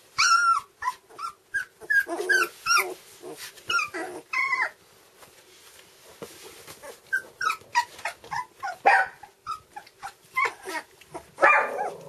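Litter of two-week-old red standard poodle puppies whimpering and squeaking: many short, high-pitched yips and whines overlapping, with a quieter lull about halfway through.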